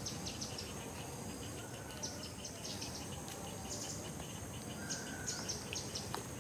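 Forest ambience of insects and birds: a dense run of short high chirps with a thin steady high tone beneath them, and a few brief whistled notes.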